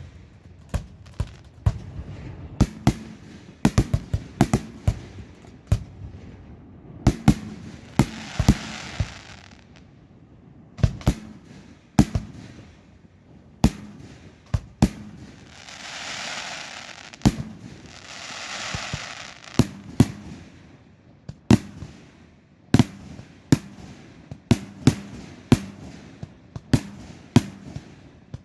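A fireworks display: aerial shells bang one after another at an uneven pace, a couple of times a second at the busiest. Twice in the middle a hissing crackle swells up and fades.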